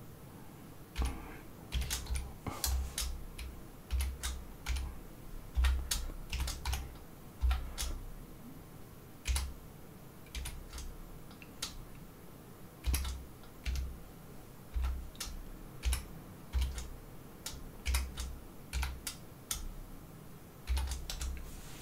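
Computer keyboard typing in irregular short runs of keystrokes with pauses between them, each run carrying a dull thud as the keys bottom out.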